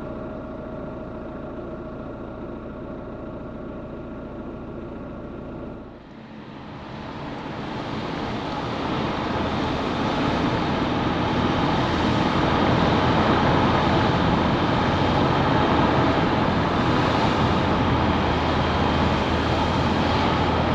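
Car driving on the road: a steady engine hum, then about six seconds in the sound dips briefly and a louder rush of road and wind noise builds up and holds.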